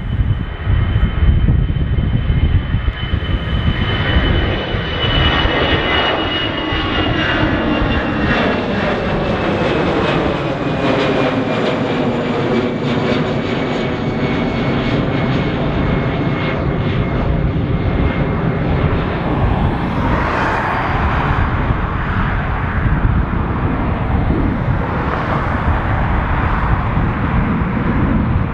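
Airbus A320 climbing out after takeoff, its two jet engines at takeoff thrust: a steady loud jet roar with a high whine that slowly falls in pitch as the aircraft passes and climbs away, the middle of the sound swirling and phasing as it goes.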